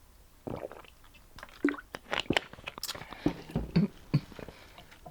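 Close-miked chewing and wet mouth smacks while eating seafood boil, with irregular clicks and brief bites.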